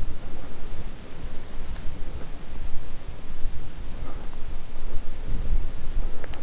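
Wind buffeting the microphone in uneven low rumbles, over a steady high insect trill, most likely crickets.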